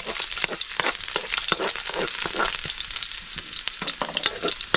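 Garlic frying in hot cooking oil in a pan, a steady sizzle with many irregular crackling pops.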